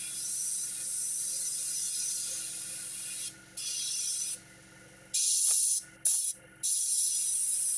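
Airbrush spraying paint: a steady hiss of air, cut off briefly several times as the trigger is let go, louder over the second half.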